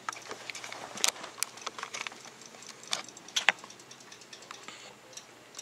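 Scattered light clicks and taps at an uneven pace, with a few sharper ones about a second in and again around three seconds in.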